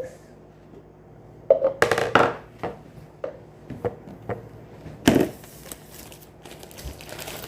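Handling noises: crinkling and rustling of packaging, in two louder spells about a second and a half and five seconds in, with a few small clicks and knocks between.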